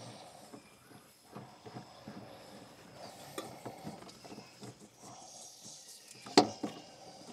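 A small filter wrench and hands working a spin-on diesel filter loose: scattered metal clicks, scrapes and knocks, with one sharp clank a little over six seconds in.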